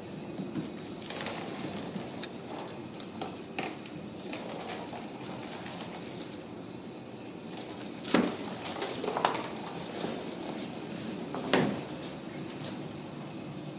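Ragdoll kittens playing: light scrabbling, taps and clicks from their paws, claws and toys on a rug and wooden floor, with two louder knocks about eight and eleven and a half seconds in.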